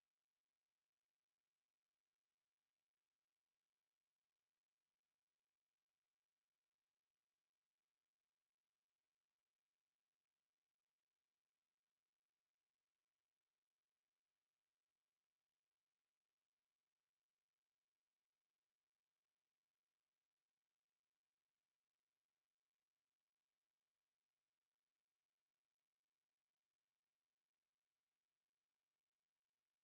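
A steady, high-pitched pure sine tone at 10626 Hz, held unchanged at a constant level: a test tone for checking speakers and headphones.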